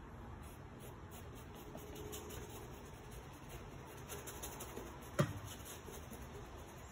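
A small paintbrush scrubbing and dabbing thick paint on a stiff panel, making soft, scratchy strokes. One sharp tap comes about five seconds in.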